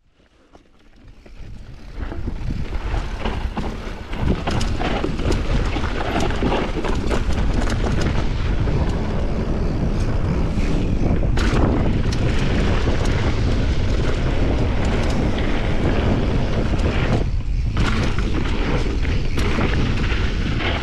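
Wind rushing over the camera's microphone and mountain bike tyres rolling fast over a loose gravel trail, with frequent short knocks from the bike over the rough ground. It starts almost silent, builds over the first few seconds as the bike picks up speed, then stays loud and steady.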